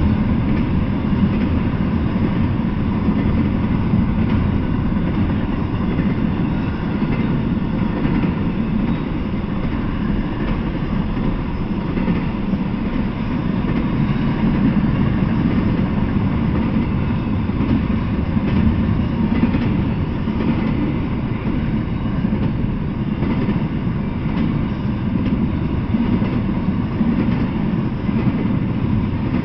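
Double-stack intermodal freight train rolling past, a steady rumble of steel wheels on the rails.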